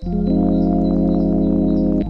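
Background music: one chord held steadily on an organ-like keyboard.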